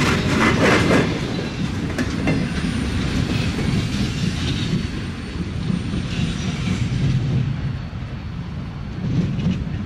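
Freight train cars rolling past on the track, loudest at first, with a couple of sharp wheel clacks about two seconds in as the last car clears, then a steady low train rumble.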